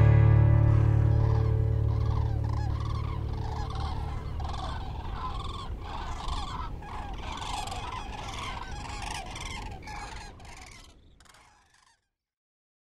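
A flock of common cranes calling: many rolling trumpeting calls in quick succession, overlapping, over the fading last notes of a guitar. The calls grow gradually fainter and die away near the end.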